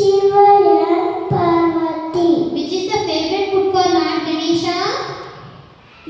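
A small child singing into a microphone: long held notes in short phrases, the last one fading away near the end.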